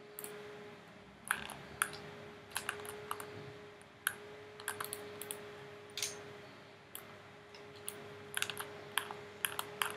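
Computer keyboard keys and mouse buttons clicking irregularly, sometimes in quick clusters of a few clicks, over a faint steady hum.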